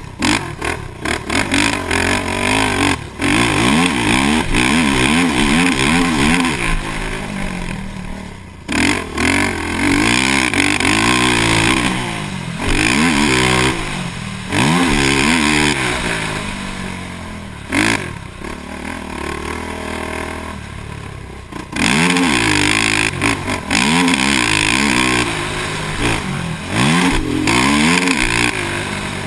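2006 Honda TRX450R quad's single-cylinder four-stroke engine being ridden hard on a dirt motocross track, revving up and falling back again and again as the throttle is opened and closed. Its pitch climbs through each burst, with several short lulls where the throttle is shut off.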